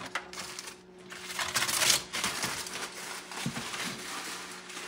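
Aluminium foil crinkling and crackling as a crumpled foil cover is pulled off a roasting pan, loudest about two seconds in.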